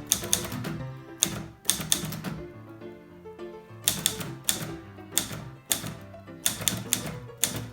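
Olivetti Lettera 22 manual portable typewriter being typed on: uneven runs of sharp key strikes, with a pause of about a second and a half near the middle. Background music plays underneath.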